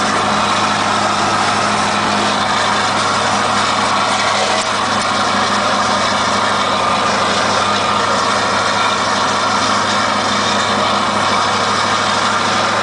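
Scania R580 truck's 16-litre V8 diesel running steadily with a straight-through exhaust, heard from inside the cab.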